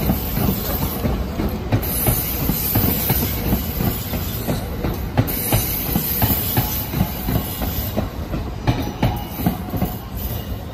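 E2 series Shinkansen trainset rolling past on depot tracks: a steady rumble of wheels on rail with a dense, uneven run of clacks over the rail joints and points. It fades a little near the end as the last car goes by.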